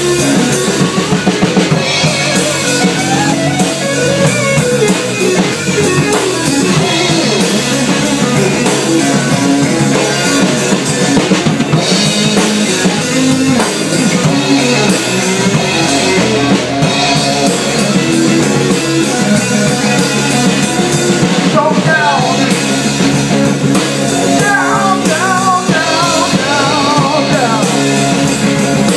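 Blues-rock band rehearsing: a bass guitar played up close, with a drum kit and a guitar.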